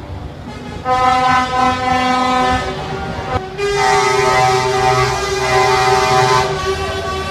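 Truck air horns sounding: a steady blast starting about a second in, then a louder, fuller chord of several tones for about three seconds, with one lower tone held on after it.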